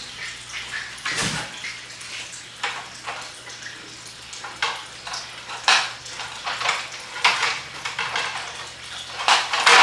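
Lip splitter pieces being handled and fitted together, knocking and clattering at irregular intervals, with a loud knock near the end.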